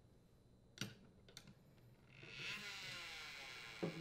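Light clicks and knocks of the plastic ice maker auger motor housing being handled, with a rubbing scrape lasting over a second from about two seconds in and a knock near the end.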